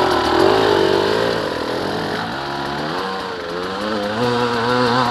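Dirt bike engines being ridden through the woods, the pitch rising and falling as the throttle is worked.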